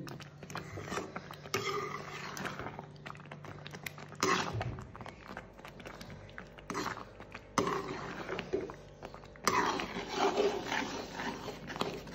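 Thick mango pickle bubbling and popping as it simmers in a pan, with irregular wet clicks and a few louder knocks.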